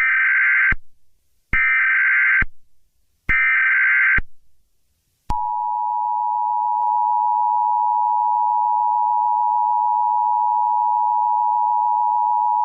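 Emergency Alert System tones. First come three short bursts of SAME header data tones, each under a second long. Then, about five seconds in, the steady two-tone EAS attention signal (853 and 960 Hz) begins.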